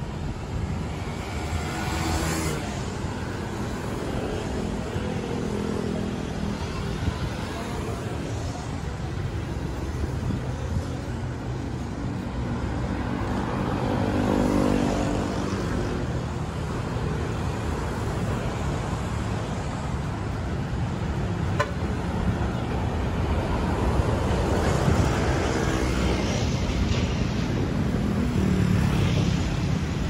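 Street traffic: cars and motorcycles passing close by over a steady road hum, each one swelling and fading as it goes past.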